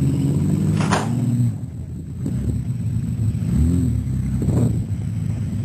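Off-road 4x4 vehicle engine running, with a short rev that rises and falls in pitch near the middle.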